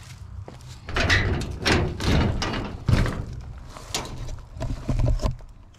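Metal mesh gate of a chicken run rattling and knocking as it is handled: a run of irregular clanks and rattles.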